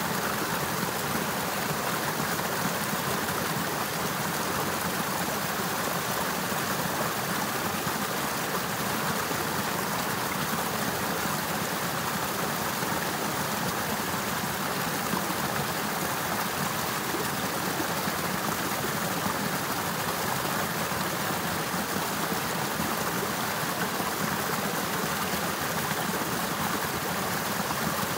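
Water of a partly frozen river with icicles running steadily, a constant even rush of flowing water.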